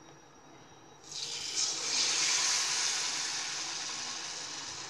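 Hot oil in a kadai sizzling as a maida-batter-coated ball is dropped in to deep-fry. The hiss starts suddenly about a second in, swells, then slowly fades.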